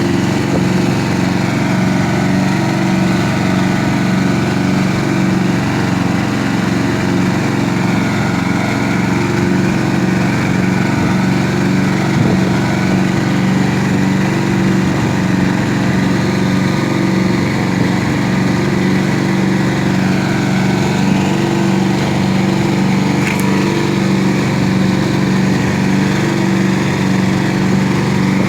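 Small engine driving a grass chopper, running steadily at constant speed.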